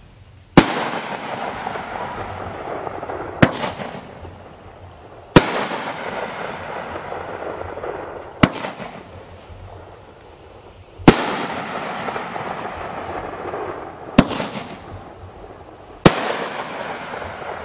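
Aerial shots from an American Intensity multi-shot consumer firework cake: seven sharp bangs about two to three seconds apart. Several are followed by a noisy tail that fades away over a few seconds.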